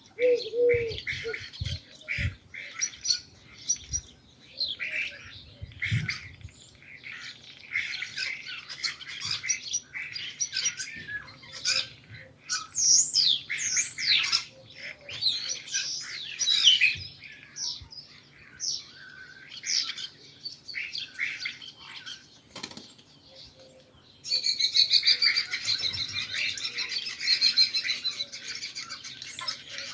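Small birds chirping and twittering in quick, overlapping calls, with a brief low coo at the very start. About 25 seconds in the calls thicken into a dense, continuous chattering chorus.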